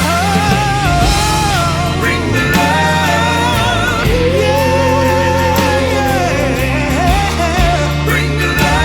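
Background song with a sustained, wavering singing voice over steady bass and instrumental backing.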